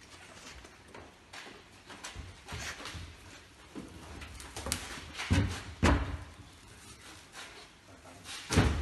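Wooden spa deck panels knocking and bumping as they are shifted and fitted around the tub: a series of dull thumps and knocks, the loudest about five to six seconds in and again near the end.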